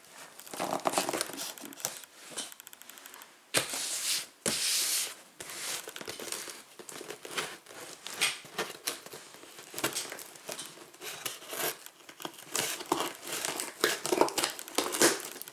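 Packaging being torn and crinkled by hand while a sealed box is worked open: irregular rustling and scraping, with a longer tearing sound about four seconds in.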